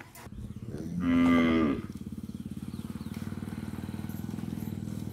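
Khillar cattle mooing once, a loud call lasting under a second, about a second in. A steady low throbbing hum runs underneath.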